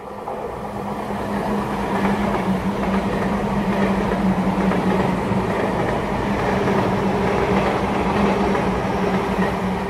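Sotetsu New 7000 series electric train passing through a station at speed on rain-soaked track: a loud rush of wheel and rail noise with clickety-clack, building over the first two seconds as the train arrives and staying loud as the cars stream past.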